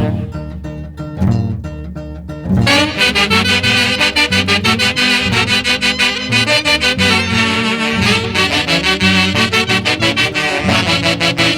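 Orquesta típica from Huancayo playing a Santiago tune, led by saxophones and trumpets over a bass line. A quieter opening gives way to the full band with a steady beat about two and a half seconds in.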